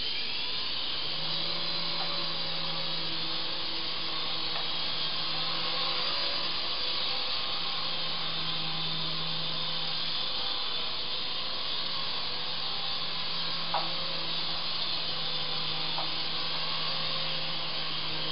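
Syma S109 mini coaxial R/C helicopter's small electric motors and rotors whirring in flight: a steady whine whose pitch rises at the start, then shifts as the throttle changes, with a couple of light clicks near the end.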